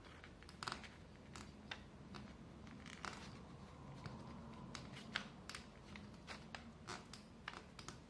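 Faint, irregular clicks and ticks of thread being wound and pulled around the small nails of a string-art board.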